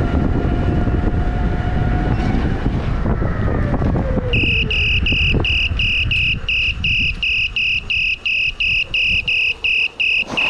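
Wind and road rumble from a moving electric unicycle, with its motor whine falling as it slows. About four seconds in, a loud high-pitched electronic beeping starts and repeats evenly, roughly three beeps a second: an electric unicycle's alarm beeper.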